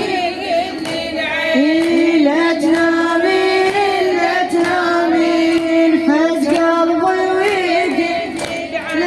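A woman singing a Shia Muharram lament, holding long, wavering notes on drawn-out vowels with ornamental bends and no clear words.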